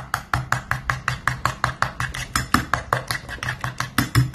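Metal spoon stirring thick, wet henna paste in a bowl, clicking against the bowl about six or seven times a second.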